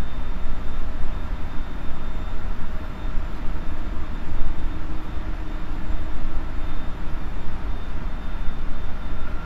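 Steady hum and whir of a JR Central 373 series electric multiple unit standing at a platform, its on-board equipment running. Faint steady whines sit over a deep rumble.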